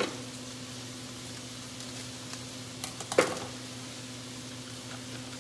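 Steady low hum with faint kitchen background, and one sharp clack about three seconds in: scissors set down on a granite countertop.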